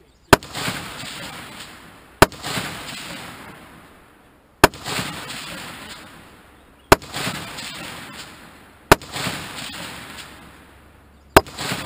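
Six single gunshots about two seconds apart, each loud crack followed by a long rolling echo across open ground.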